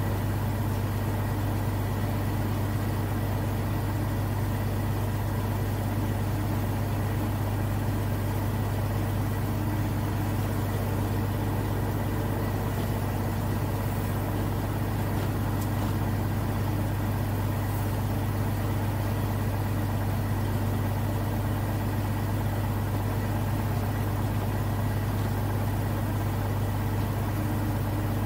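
Zlín 42 light aircraft's piston engine running steadily, an unchanging drone.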